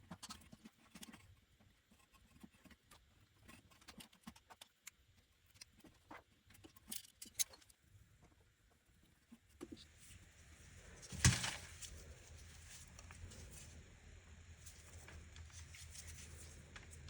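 Scattered light clicks and taps of hands working with tools and parts, with one louder knock about eleven seconds in, over a low steady hum that comes in about ten seconds in.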